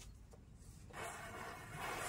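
A row of matchsticks igniting one after another, a rush of flaring noise that jumps up sharply about a second in as the flame races along the chain.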